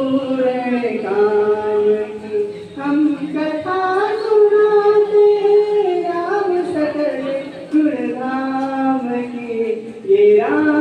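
A solo voice singing a Hindi devotional bhajan about Lord Ram into a microphone, with no instruments. It holds long, slowly gliding notes, with brief breaths between the phrases.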